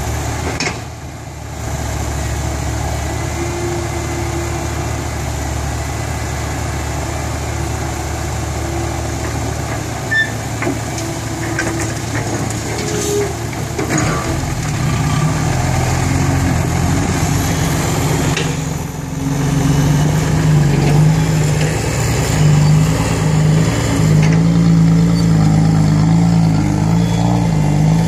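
Diesel engines of a Komatsu hydraulic excavator and a six-wheel dump truck running steadily while dirt is loaded. The engine sound grows louder and deeper about halfway through.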